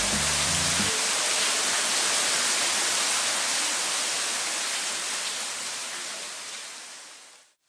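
Steady loud rush of water in a rock gorge, a mountain river running below the walkway. A few notes of music end about a second in, and the rush fades out near the end.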